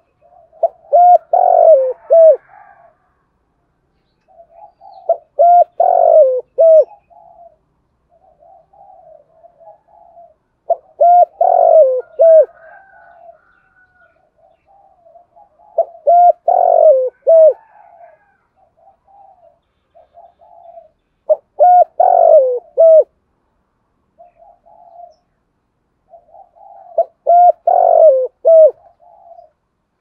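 Caged decoy spotted dove cooing: a phrase of several loud coos repeats about every five seconds, six times, with softer, quicker murmuring coos between the phrases.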